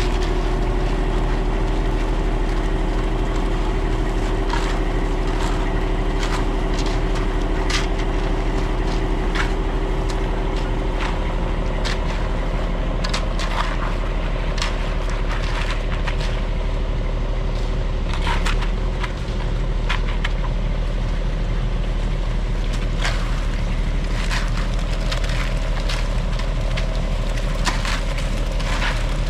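A heavy engine running steadily at idle, with many short scrapes and knocks over it.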